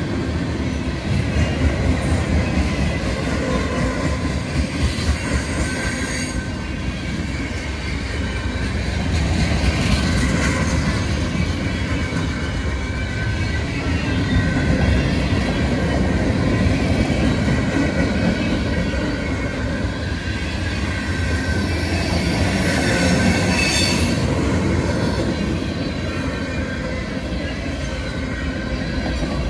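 CSX freight train cars rolling past: steady rumble and clatter of steel wheels on the rails, with thin wheel squeal coming and going.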